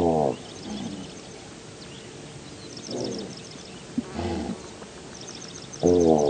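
Wild animal giving short, harsh, pitched calls every second or few, each lasting under half a second, with high bird chirping in the background.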